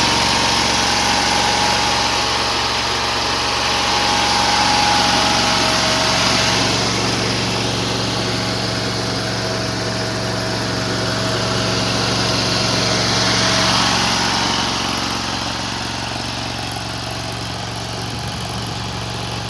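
AGT Industrial CRT23 mini skid steer loader's engine running steadily, with a higher hiss that swells and fades twice and the sound easing off a little near the end.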